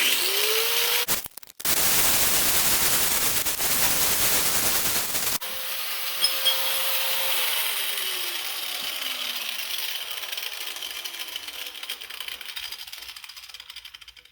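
An angle grinder with a metal cut-off wheel spins up, then cuts through the metal tubing with a loud harsh grinding for about four seconds. The cut ends abruptly, and the motor runs free briefly before winding down, its whine falling slowly in pitch as the wheel coasts to a stop.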